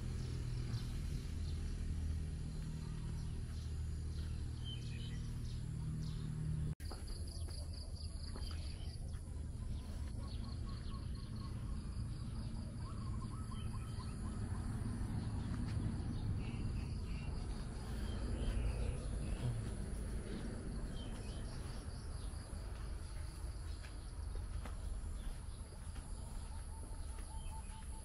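Outdoor ambience: a steady high-pitched insect drone with scattered short bird chirps over a low rumble. The sound drops out for an instant about seven seconds in.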